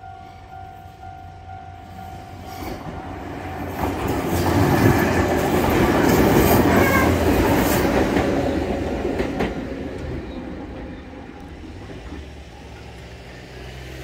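Level-crossing warning bell ringing steadily for the first second or so, then a Jōmō Electric Railway stainless electric train running through the crossing: its rumble builds, is loudest about five seconds in, and fades away, with a few sharp clacks of wheels over the rail joints.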